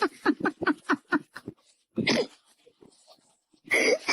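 A dog vocalizing: a rapid run of short yelps, about five a second, then a single longer call about two seconds in, and a loud breathy burst near the end.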